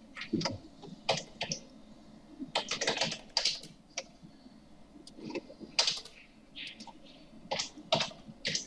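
Typing on a computer keyboard: irregular keystrokes in short runs as AutoCAD commands are entered.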